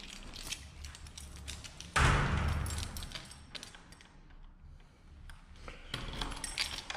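A bunch of keys jangling and a key working in a wooden door's lock, with clicks and rattles near the end. A loud thump about two seconds in is the loudest sound.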